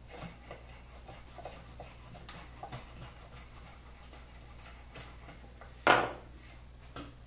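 Faint scraping and small ticks of an edged hand tool paring wood out of a block. About six seconds in, a single loud knock as a wooden hand plane is set down on the wooden workbench, and a smaller click just after.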